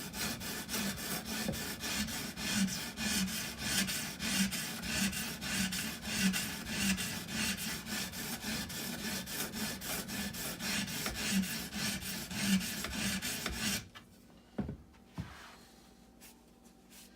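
Edge Pro water stone stroked back and forth along a small hunting knife's steel edge, a little under two rhythmic scraping strokes a second: the last few passes on each side to raise a burr. The strokes stop about 14 seconds in, followed by a couple of light knocks.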